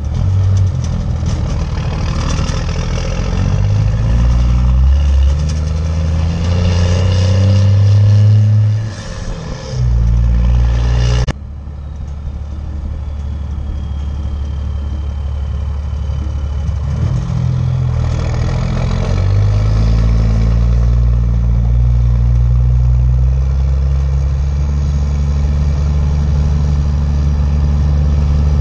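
The 12-valve 5.9 Cummins inline-six diesel of a 1995 Dodge Ram 3500 is working under a heavy towing load of about 12,000 lb. The engine note climbs in steps and drops briefly for a gear change. The sound changes abruptly about eleven seconds in, and after that the engine runs steadier, its pitch slowly rising again.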